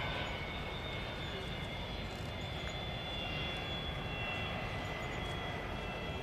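Boeing 787-9 Dreamliner jet engines heard from the ground as the airliner banks through a flying display. The noise is a steady low rumble with a few faint, high, steady whining tones over it.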